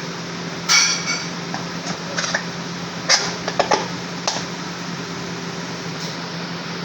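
Steady fan-like whir with a low hum, over which hard objects clink and clatter several times. The loudest knocks come about a second in and around three seconds in, each with a short metallic or glassy ring.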